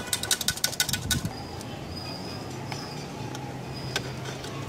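A quick run of small clicks and rattles as wiring is handled and pulled through the motorcycle's headlight shell, dying away after about a second, then a low steady hum underneath.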